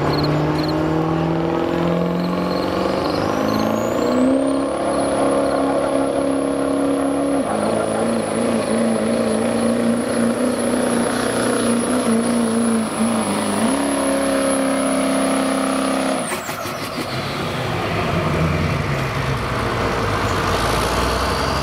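Chevrolet Duramax diesel pickup at full throttle pulling a weight-transfer sled, its engine note stepping up in the first few seconds, dropping back about a third of the way through, then climbing again. A high turbocharger whistle rises early and holds until the throttle is cut about three-quarters through, when engine and whistle wind down together.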